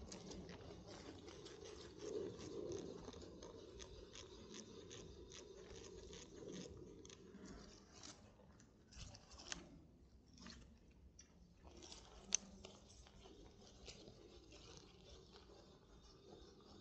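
Faint, irregular clicking and crackling from handling a spinning rod and reel while reeling in, with one sharper click about twelve seconds in.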